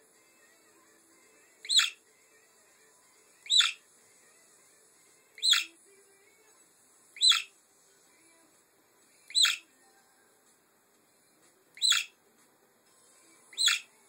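Budgerigar giving seven short, sharp chirps, each a quick falling note, repeated evenly about every two seconds.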